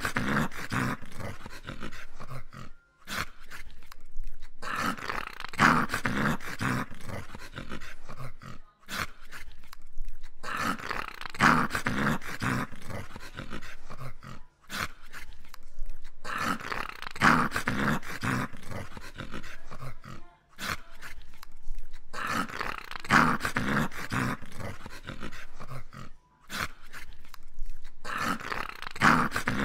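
English cocker spaniel play-growling while rolling on its back, in long grumbling bouts of several seconds broken by short pauses.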